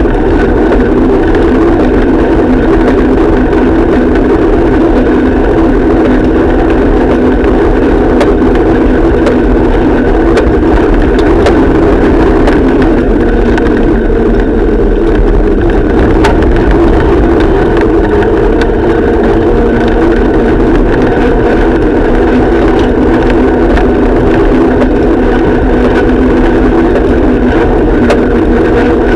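A small engine running steadily, loud and close, mixed with road and wind noise, with a few faint knocks from bumps. Its pitch dips slightly about two-thirds of the way through.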